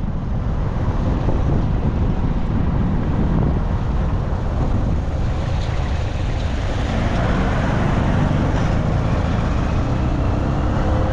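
Wind buffeting the microphone over road traffic noise, with a passing vehicle's engine rising in pitch in the second half.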